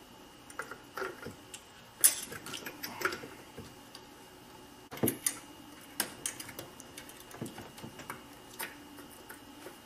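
Clicks, knocks and light rattles of a headlamp unit being handled and pushed into a pop-up headlight bucket, with the sharpest knocks about two and five seconds in. The lamp is not seating flush.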